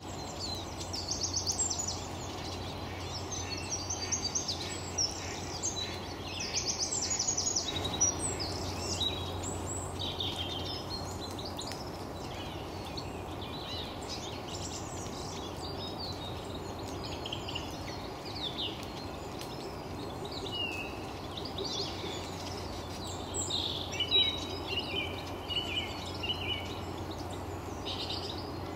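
A flock of Eurasian siskins twittering while feeding: bursts of fast, high chirps and trills, busiest in the first ten seconds and again near the end. A steady low background hum runs underneath.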